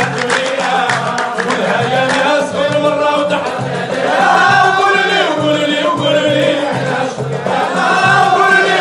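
Dakka marrakchia chant: a chorus of men singing together with lead singers on microphones, with handclapping.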